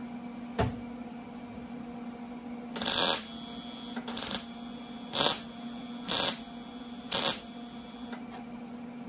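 Wire-feed MIG welder laying tack and stitch welds on thin sheet steel: five short bursts of arc noise about a second apart, the first the longest, over a steady low hum. A single click comes just before them.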